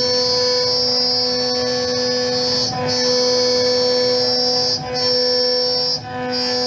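CNC router spindle driving a two-flute end mill through 5083 aluminium plate: a steady, high-pitched cutting whine that briefly dips three times.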